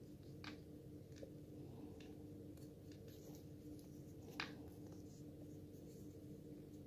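Faint handling of a wristwatch on a leather strap: soft rubbing and a few light clicks as the strap is bent and the case turned, the sharpest click about four and a half seconds in, over a steady low hum.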